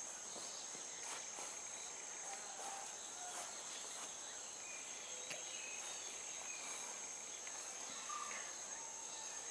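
Faint outdoor ambience: a steady, high-pitched drone of insects such as crickets, with a few faint, short chirps scattered through it.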